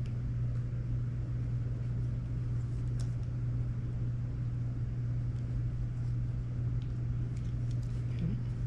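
Steady low hum throughout, with a few faint light clicks of small parts being handled, about three seconds in and again near the end.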